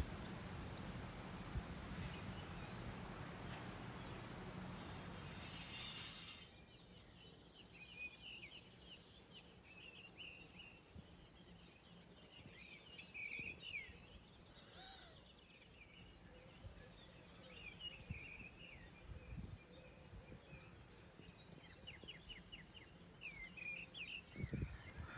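Birds calling in quick, scattered chirps. A steady rushing noise in the first six seconds falls away.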